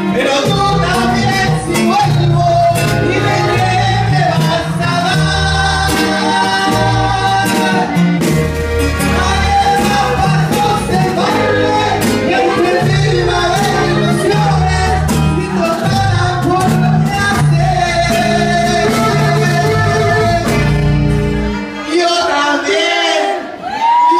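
Live Latin band music with a singer and electric bass, loud and driving. The bass line drops out about two seconds before the end.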